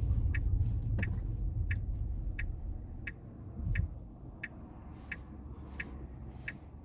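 Car turn signal clicking steadily, about three clicks every two seconds, over the low hum of the car.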